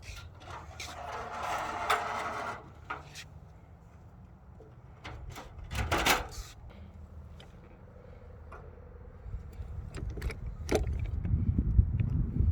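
Handling noise from a roof crossbar being fitted onto roof rails: a rubbing, scraping stretch for the first couple of seconds, then several sharp clicks and knocks of the fittings. A low rumble builds near the end.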